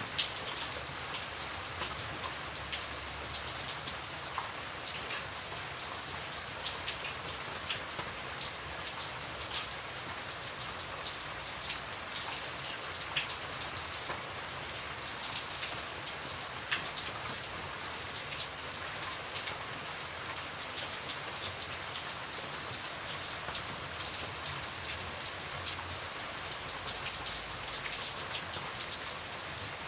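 Steady light rain falling, with a continuous hiss and many separate drops pattering on a surface.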